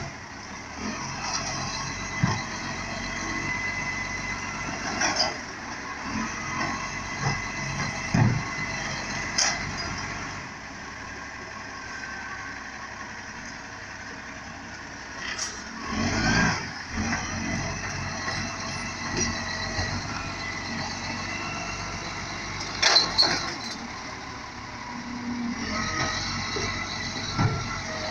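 Garbage truck running at the kerb while its lifting arm picks up and empties wheelie bins, with a steady engine and hydraulic noise broken by repeated clunks and knocks, the loudest about halfway through.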